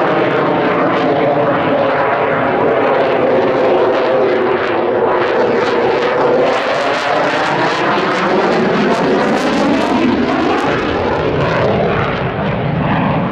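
Eurofighter Typhoon FGR4's twin EJ200 turbofan jet engines, loud and steady, with a slowly sweeping, phasing tone running through the noise as the jet manoeuvres.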